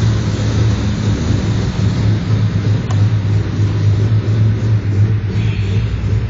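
Chevrolet Opala's naturally aspirated, fuel-injected engine running steadily with an even, deep rumble.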